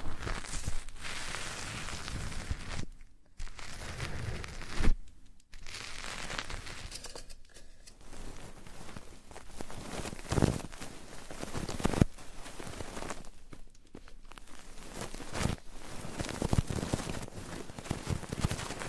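Close-miked rustling and scratching on an ASMR microphone, the rubbing and ear-cleaning kind of trigger, with scattered soft clicks and a few brief dropouts to quiet.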